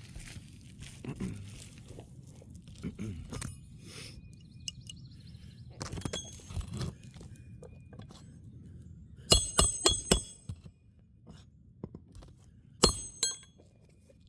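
Roofer's hatchet driving roofing nails into a replacement asphalt shingle: a quick run of about five sharp, ringing metallic strikes, then two more near the end, after some quiet handling of the shingles.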